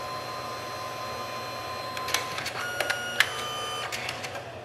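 Canon SELPHY CP-1500 dye-sublimation photo printer feeding a finished print out, its motor running with a steady whine. About two seconds in the whine stops and a few sharp clicks and short whistling tones follow as the paper is ejected, then the mechanism falls quiet.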